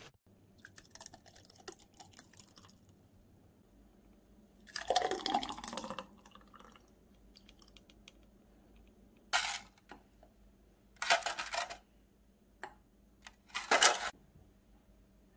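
Thick, freshly blended apple and carrot juice poured from a blender jug into drinking glasses, in several short separate pours, with light clicks and knocks of glass and jug.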